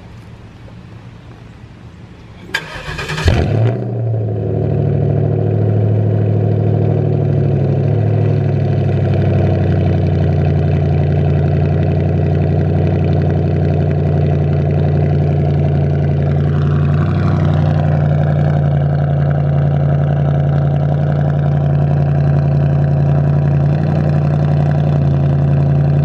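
Straight-piped 2009 Ford Crown Victoria 4.6-litre V8 cold-started: the starter cranks briefly about three seconds in and the engine catches loudly. It then settles into a steady, loud idle out of the open exhaust.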